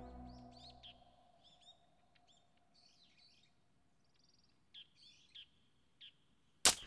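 Sad background music fading out, then sparse, short chirps of small birds. A sudden brief burst of noise, the loudest sound, comes just before the end.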